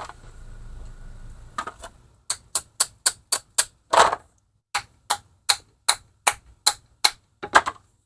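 Ratcheting wrench clicking in a steady run of sharp clicks, about four a second, as it is worked back and forth on a stuck, rusty carburetor fitting. There is a short break about four seconds in.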